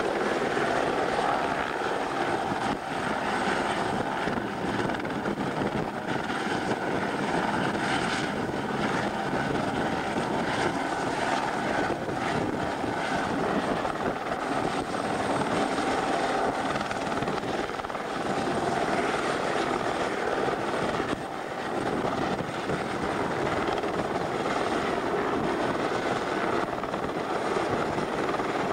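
Light single-engine helicopter hovering close by, its rotor and engine noise steady throughout with a thin high whine over it. The helicopter holds a slung line to workers below.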